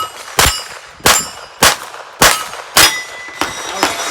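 Rimfire pistol shots on a Steel Challenge stage, five in quick succession about half a second apart, each followed by the ring of a steel plate target being hit.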